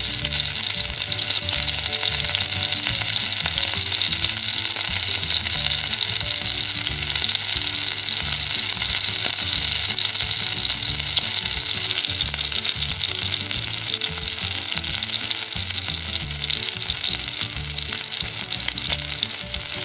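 Skewered chicken pieces frying in hot oil in a frying pan: a steady, even sizzle as the meat browns.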